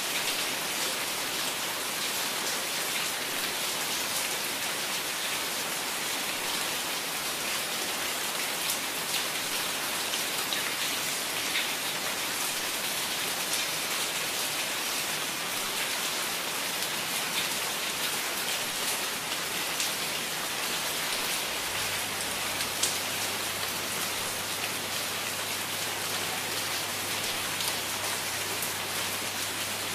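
Steady heavy rain falling, an even dense hiss with sharp single drop splashes standing out here and there.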